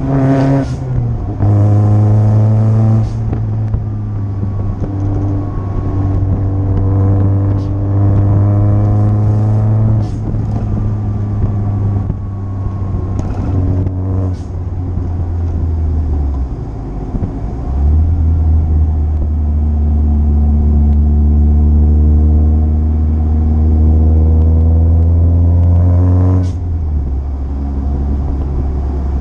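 Supercharged 1.6-litre Mazda Miata four-cylinder (M45 supercharger) pulling through the gears, its pitch climbing slowly in each gear and dropping at several gear changes. Some of the shifts carry a short hiss from the blow-off valve venting boost.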